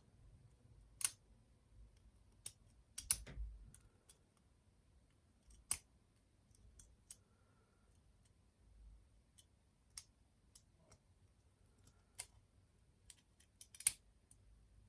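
Lock picks working in the keyway of a Yale padlock: scattered sharp metal clicks and ticks at an uneven pace, a few louder ones standing out.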